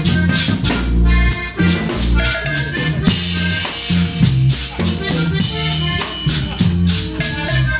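A band playing music: a steady beat of drum hits under held melody notes, with no singing.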